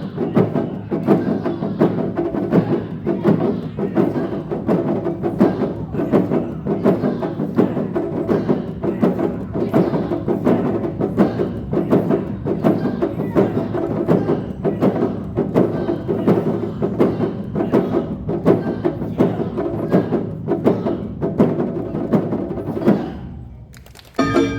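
Live Awa Odori festival accompaniment: music driven by a steady, rhythmic beat of percussion, fading out near the end, where a different piece cuts in.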